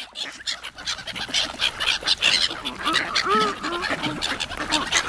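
Gulls and mallard ducks calling as they crowd over food on a pond, with a run of short arched calls starting a little past halfway, over many quick sharp splashes and wingbeats.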